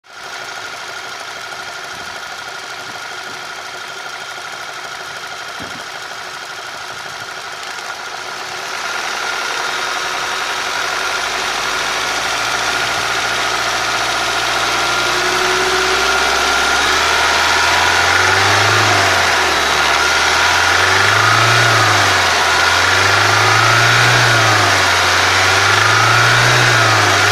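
1.8 TSI turbocharged four-cylinder petrol engine running with an engine knock. It runs steadily at first, gets louder about a third of the way in, then is revved up and down over and over in the second half.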